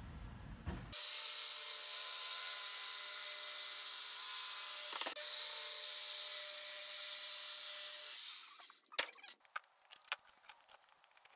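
Circular saw running and cutting through a board for about seven seconds, then winding down. A few light knocks and clatters follow as the cut board is handled.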